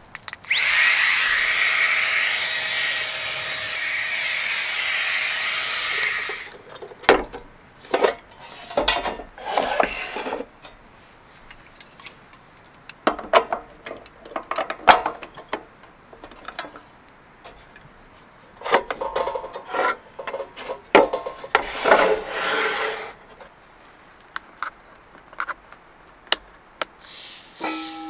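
A small electric motor starts with a rising high whine, runs steadily for about six seconds and cuts off suddenly. Then come scattered knocks, clatters and rubbing as camp kitchen gear is handled on a wooden table.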